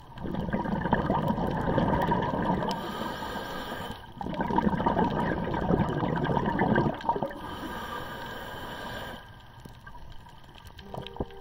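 Scuba diver's exhaled bubbles gurgling out of a regulator, heard underwater: two long breaths out, each followed by a softer hiss of breathing in.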